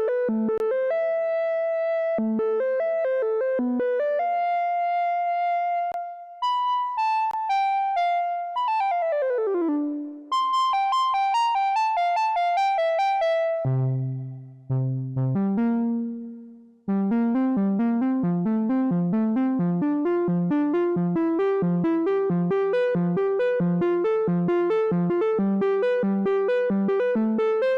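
Arturia MiniFreak synthesizer playing factory presets: a melodic line of separate notes, then a quick falling run of notes around nine seconds in. A few deep bass notes follow, and from about seventeen seconds a fast, even arpeggio.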